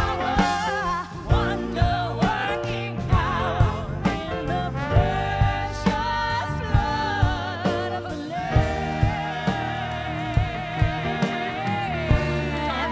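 Live band music with a vocal trio singing over a steady beat. A singer holds long notes with vibrato from about five seconds in.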